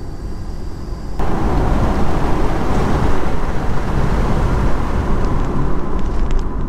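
Inside the cabin of a moving Audi A4 wagon: a steady rush of road and wind noise that jumps suddenly louder about a second in and stays loud.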